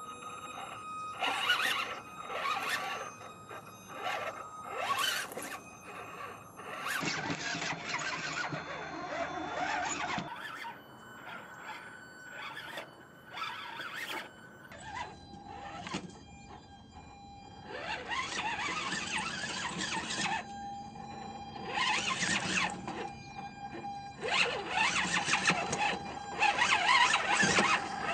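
Electric motor and gearing of an RC rock crawler whining in repeated bursts as the throttle is worked, crawling over river rocks.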